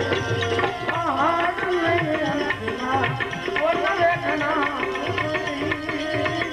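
Gujarati devotional bhajan (santvani) music: tabla keeping a steady rhythm under a melody that slides up and down.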